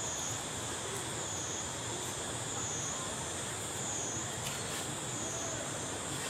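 Insects buzzing in a steady high-pitched drone that dips in pitch about once a second, over a constant background hiss.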